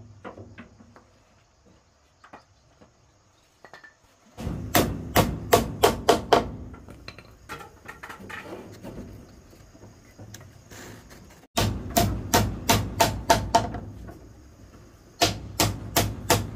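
Hammer driving nails into wooden boards: three quick runs of blows, about four a second, with pauses between. The first run starts about four seconds in.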